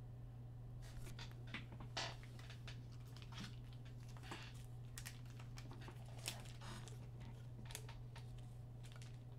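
Faint, scattered clicks of typing on a computer keyboard over a steady low hum.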